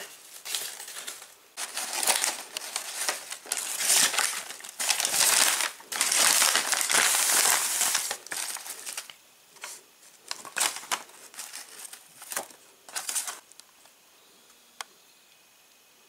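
Crinkly gift wrapping being pulled open and crumpled by hand: dense rustling and crackling for the first eight seconds or so, then a few sparser crinkles that die away near the end.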